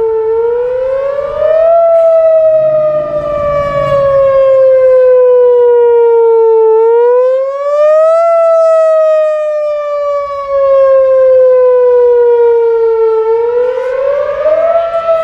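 Outdoor tornado warning siren sounding loudly during a siren test. It runs a repeating wail: the pitch climbs quickly for about two seconds, then sinks slowly for about five, over and over.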